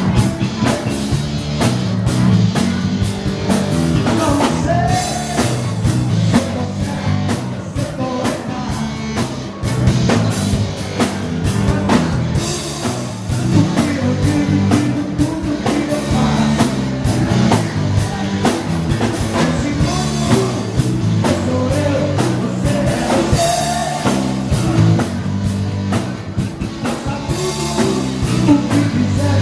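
A dance band playing live with a drum kit keeping a steady beat and a lead voice singing.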